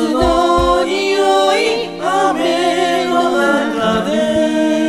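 Four voices singing together a cappella in harmony, holding long notes with a slight vibrato in the second half.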